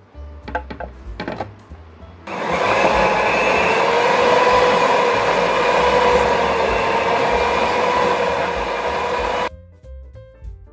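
Electric stand mixer switched on about two seconds in and running on low speed, its beaters churning cream cheese, with a steady motor whine; it cuts off suddenly near the end. Before it starts, a few light clicks and knocks.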